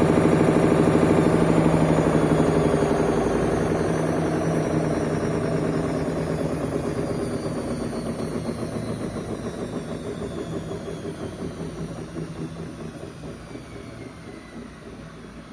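Whirlpool washing machine coasting down at the end of a spin: the drum and motor slow, the whine falls in pitch and the machine fades steadily.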